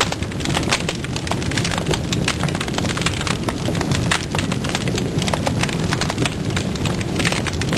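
Open fire of dry twigs and branches crackling, with many irregular sharp snaps over a steady low rush of the flames.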